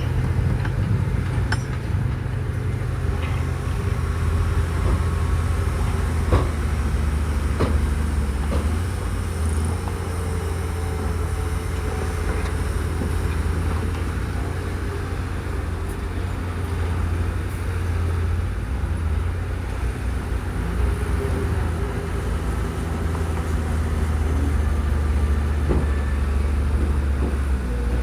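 Motors of remote-control model construction machines running with a steady low drone, broken by a few clicks and knocks.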